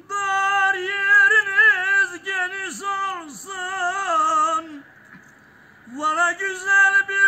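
A man singing unaccompanied in a high, strained voice, the pitch bending and wavering through a long phrase; he breaks off for a breath about five seconds in, then starts the next phrase.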